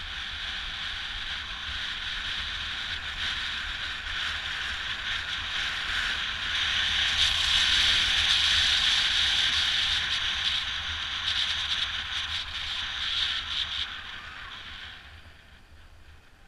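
Skis hissing and scraping over packed snow, with wind rushing past, on a fast downhill run. It grows to its loudest about halfway through, then fades away near the end as the skier slows.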